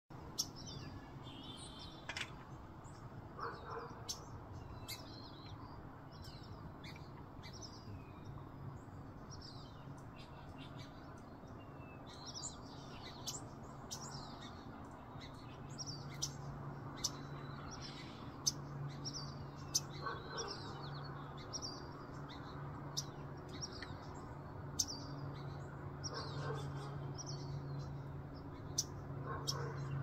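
Small birds chirping and calling all around, a steady scatter of short high chirps. A steady low hum sits beneath them and grows stronger about halfway through.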